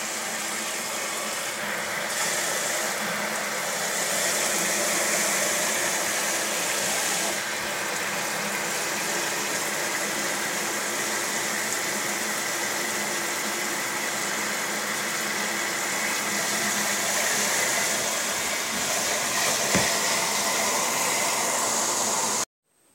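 Water running steadily from a tap, filling the tub of a portable washing machine.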